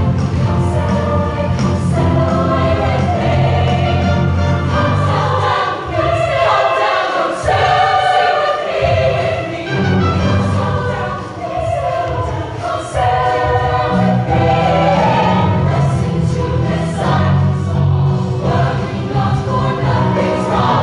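Women's show choir singing in full harmony, backed by a live band. About six seconds in, the low band backing drops away for a few seconds and leaves the voices nearly alone, then comes back in.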